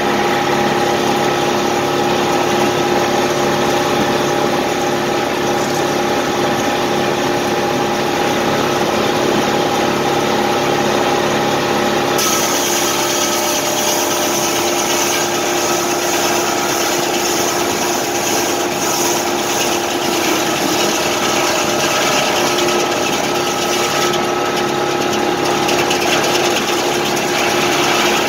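Tractor-driven circular sawmill running, with the tractor engine and the spinning saw blade making a steady hum at fixed pitches. Partway through, a hiss joins for about twelve seconds as the blade cuts through a board on the carriage, then drops away.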